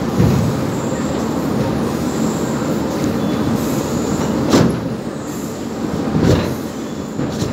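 Steady machinery noise of a cement-bag loading conveyor, with three heavy thumps of cement bags being thrown into the wagon: just after the start, about four and a half seconds in, and about six seconds in.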